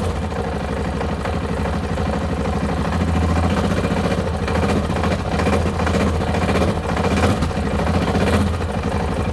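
Yamaha XT660Z Ténéré single-cylinder engine idling steadily with even, rhythmic firing pulses. A knocking is heard in the running, which the owner takes for an engine knock.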